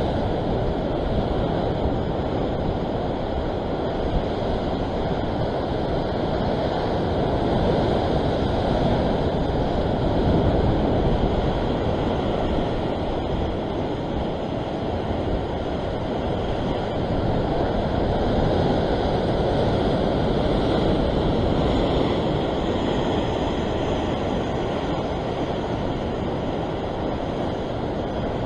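Sea surf washing and surging against coastal rocks, a steady rushing noise that swells and eases gently. Wind on the microphone adds a low rumble.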